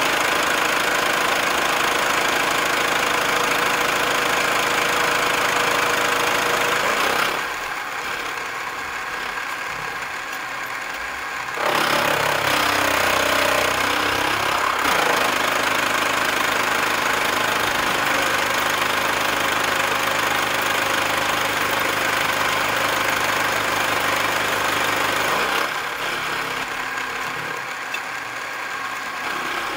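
Milling machine cutter taking a cut across a metal block, a loud steady cutting noise over the machine's running. The cutting noise drops away about seven seconds in, returns some four seconds later, and drops again near the end while the machine keeps running.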